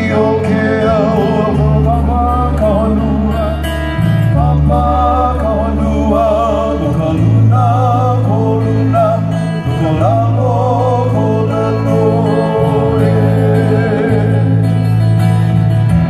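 Live Hawaiian music: a singer with a wavering, sustained melody over strummed ukulele and guitar, played through loudspeakers, with steady low bass notes that change every second or two.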